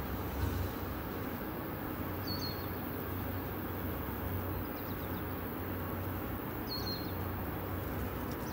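Steady outdoor background noise, a constant rush with a low rumble under it, and a bird giving a short chirp twice, a few seconds apart.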